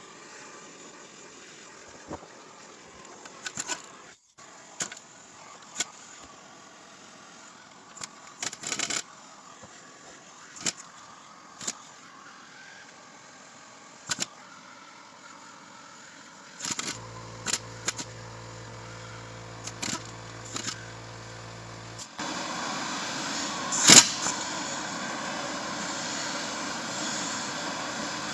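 Scattered clicks and knocks of hand tools on a transmission case; about two-thirds of the way in a power tool starts with a steady hum, then runs as a louder steady whir, with one sharp knock during it.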